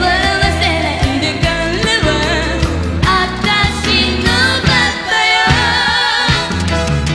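A woman singing a 1980s Japanese funk-disco pop song into a microphone, backed by a steady bass line and drum beat.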